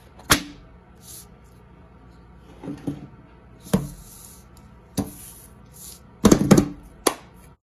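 A sheet of paper handled and laid on a stone countertop: scattered light taps and knocks of paper and hands on the hard surface, with short papery rustles, the loudest cluster about six seconds in.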